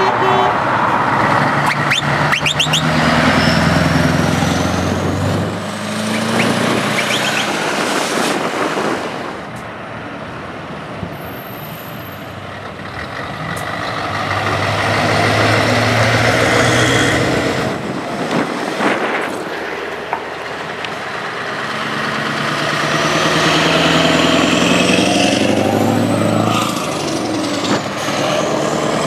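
Scania heavy trucks driving past one after another, each engine swelling loud as it passes and then fading. A high whistle rises in pitch during the first and the last pass.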